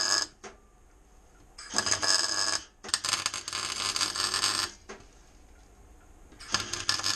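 Stick (arc) welder crackling and hissing in short bursts of one to two seconds, tack-welding steel, with about four bursts separated by pauses.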